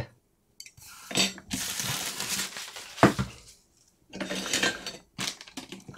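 Handling noises from unpacking a kit: a foam packing tray and plastic and metal boat parts being moved and set down on a cutting mat, with stretches of rustling, one sharp click about halfway through and a few light clicks near the end.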